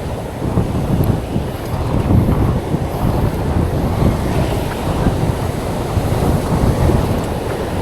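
Wind buffeting the microphone over the steady wash of ocean surf, a continuous low rumbling noise with no distinct events.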